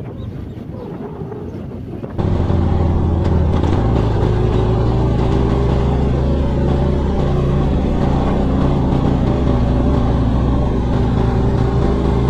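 Hyosung GT250R motorcycle engine running steadily under way, heard from the bike itself, with a steady low engine note that becomes much louder about two seconds in.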